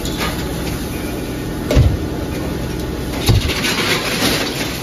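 Fireworks stock going off inside a burning shop: two dull bangs about a second and a half apart, then a spell of crackling near the end, over a steady rush of noise from the fire and the hose spray.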